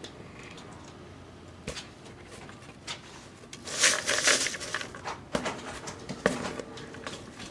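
Paper raffle tickets rustling and scratching as a squirrel rummages among them, with a loud burst of rustling about four seconds in and a few sharp clicks.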